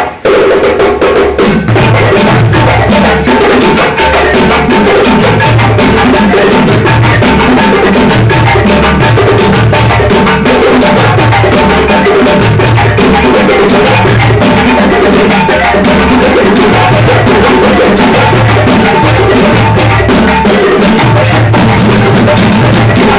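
West African hand drumming on djembes: several drums playing a loud, fast, interlocking rhythm, with low bass strokes recurring in a repeating pattern under sharp higher slaps.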